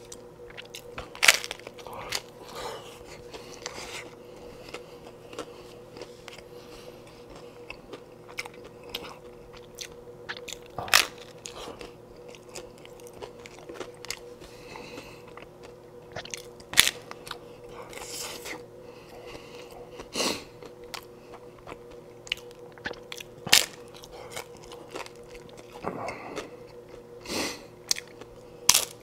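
Hard-shell corn taco shells being bitten and chewed close up: a sharp crunch every few seconds between quieter chewing. A faint steady hum runs underneath.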